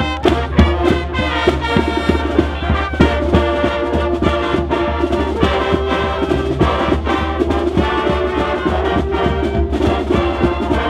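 High school band playing a brass-heavy tune: trombones and trumpets with drums beating time.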